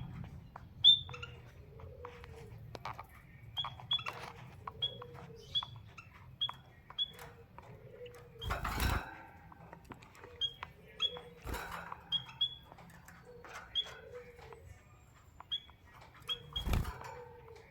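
Small cage birds (a canary and a white-headed munia) giving short, high chirps over and over at uneven intervals, with lower short calls in between. Three dull knocks stand out as the loudest sounds, a few seconds apart.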